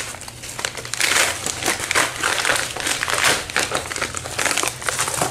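Packaging crinkling and rustling as a mailer is opened and unwrapped by hand, with a run of irregular crackles.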